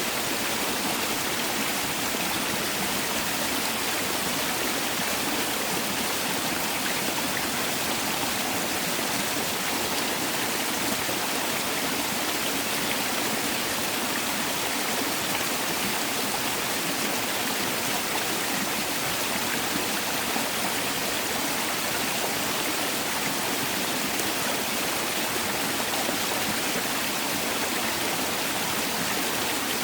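Mountain valley stream flowing and splashing over rocks, a steady rushing water sound.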